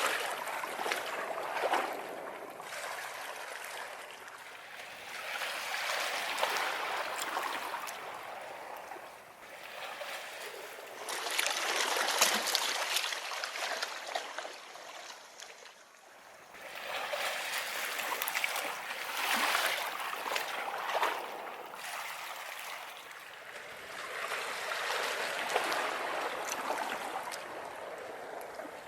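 Ocean waves breaking and washing up a beach, the surf swelling and drawing back in long surges about every six seconds.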